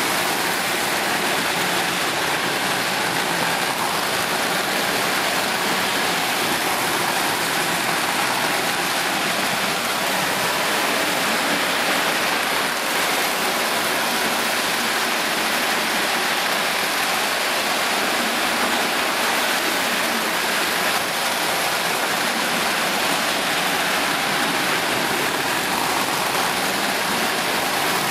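Several electric toy trains running at once on three-rail tinplate track: a steady, even noise of metal wheels on the rails and the locomotives' motors, with no pauses or changes.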